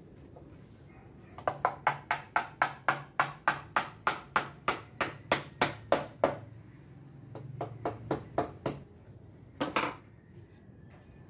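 Hammer striking a pine wood frame: a fast, even run of blows, about three to four a second, then a few lighter taps and one last heavier blow near the end.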